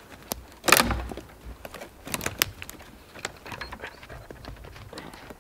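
Dry twigs and small branches snapping and brushing against a coat as someone pushes through dense conifer undergrowth: a loud rustle about a second in, then a run of sharp cracks and clicks.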